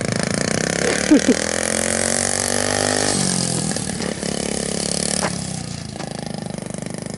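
Small 50cc dirt bike engine revving, held high and creeping higher for about three seconds, then dropping off sharply and settling to a lower, steady putter. It is being run up in first gear by a beginner rider who is not shifting up.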